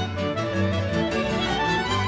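Folk-band music with no singing: a violin plays the melody over pulsing bass notes and chordal accompaniment.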